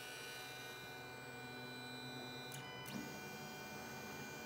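MakerGear M3 dual-extruder 3D printer humming faintly and steadily from its fans and electronics while the heated build plate and hot ends warm up before printing. Two faint clicks a little past halfway.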